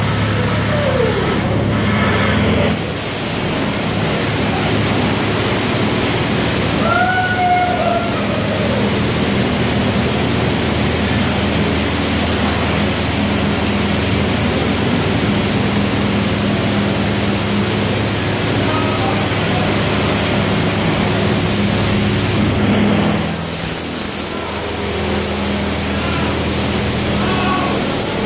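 Automatic car wash jets spraying water onto a car: a loud, steady hiss over a constant machinery hum, with a brief dip in the spray about three-quarters of the way through.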